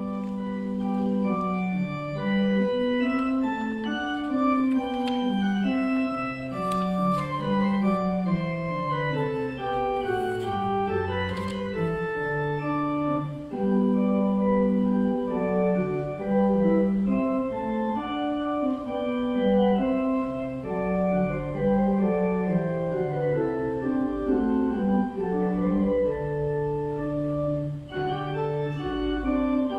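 Organ music: slow, held chords over a moving bass line.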